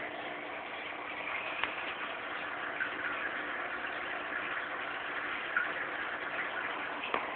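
Steady mechanical hum and hiss of running aquarium equipment, with a few faint ticks.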